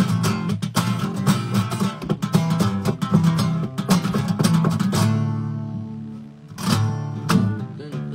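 Acoustic guitar strummed in a fast, steady rhythm, then a chord left ringing and fading from about five seconds in, with two more strums near the end.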